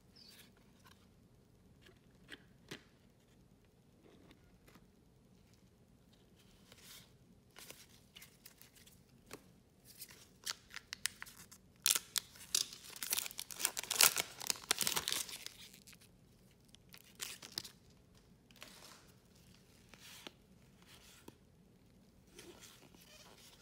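Foil wrapper of a trading card pack torn open and crinkled by hand, in a loud burst of tearing and rustling about halfway through that lasts a few seconds. Before and after it come light clicks and rustles of cards being handled.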